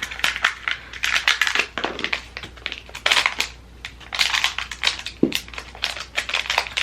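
A small cardboard advent-calendar drawer being pried out with tweezers: irregular bouts of cardboard crinkling and scraping with small clicks.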